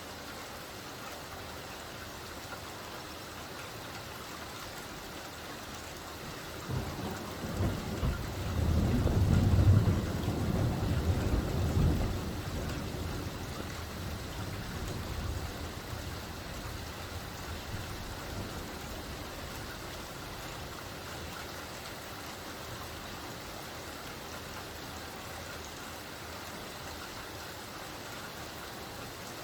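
Steady rain falling, an even hiss of drops. About seven seconds in, a low rumble swells, peaks and fades away over roughly five seconds.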